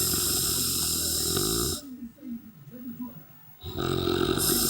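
A sleeping person snoring: one long snore of about two seconds, a quieter gap, then a second long snore starting about three and a half seconds in.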